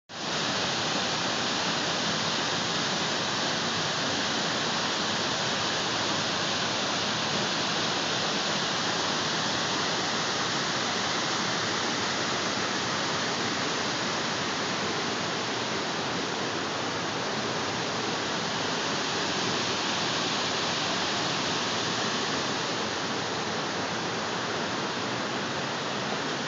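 Water falling onto rocks in a small waterfall, a steady continuous rush of splashing water.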